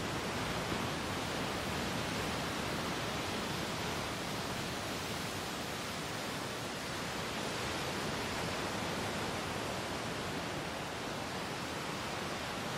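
Ocean surf washing, a steady even hiss of water with no separate wave crashes standing out.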